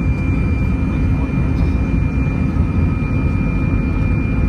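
Airbus A319's CFM56 jet engines heard inside the cabin over the wing as the aircraft rolls along the ground: a loud, steady rumble with a thin, steady high whine over it.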